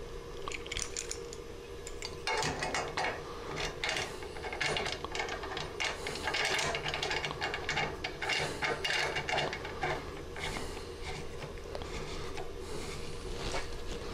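Metal clicks, clinks and rattles of a hinged stainless clamp being fitted around a glass sight-glass section on a still column and its wing nut being screwed tight, starting about two seconds in.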